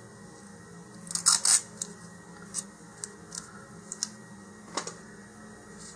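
A short strip of masking tape torn off, a brief ripping burst about a second in, followed by a few light clicks and taps of handling.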